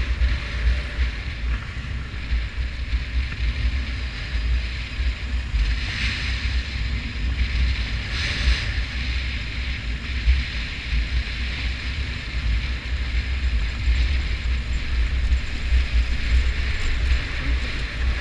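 Motorcycle riding on a dirt road, its engine and tyre noise buried under heavy wind buffeting on the microphone. Two brief louder hissing surges come about six and eight seconds in.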